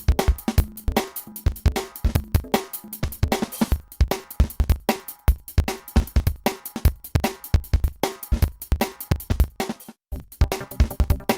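Background music with a steady, fast drum beat, with a brief break about ten seconds in.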